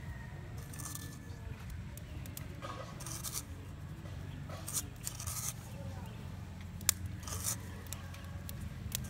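Fingers scraping pinches of salt and pepper from a coconut-shell bowl and sprinkling them onto raw ground beef: a few short, soft, gritty rustles with a sharp tick near the middle, over a steady low background hum.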